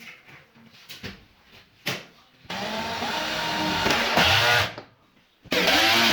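Electric power drill running in two bursts, the first about two seconds long with its pitch dipping and recovering as it loads, the second short near the end, after a few light knocks.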